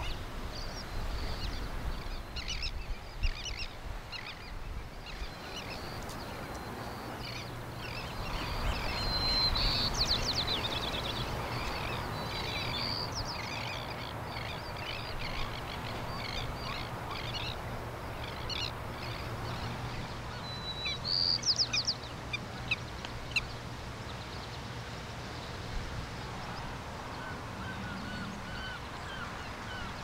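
Shoreline wildlife ambience: many short, high bird calls, repeated throughout and bunched more densely a little after the middle, over a steady background hiss.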